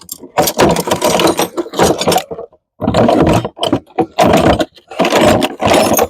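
Cordless impact wrench hammering in three bursts of a second or two each, with short pauses between, working on the wheel bearing's 13 mm retaining bolts.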